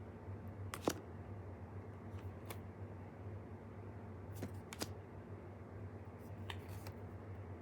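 Tarot cards being handled and laid down, making a few sharp, light clicks and taps, spaced irregularly, over a steady low hum.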